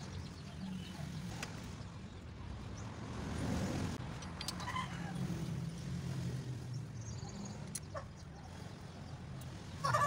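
Light metallic clicks of a socket tool being handled on the engine, over a steady low hum, with short clucking calls of chickens and a louder call just before the end.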